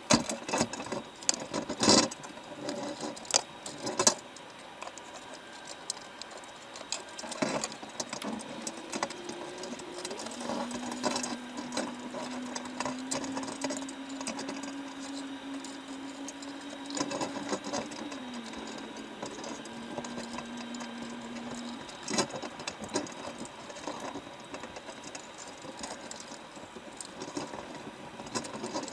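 A machine running with a single steady hum that creeps slowly upward, drops in pitch about two-thirds of the way through and then stops, among sharp knocks and clatter that are loudest in the first few seconds.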